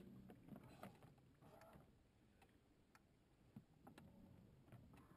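Near silence, with a few faint, scattered clicks and knocks.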